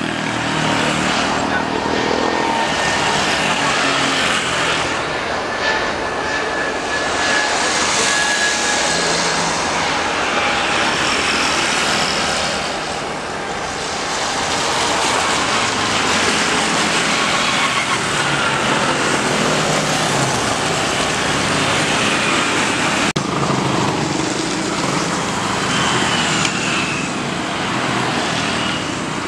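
Airbus A320neo's CFM LEAP-1A jet engines at takeoff thrust during the takeoff roll and liftoff: a steady loud rush with a high whine over it. About 23 seconds in it cuts to a Boeing 777-300ER's engines running on the runway.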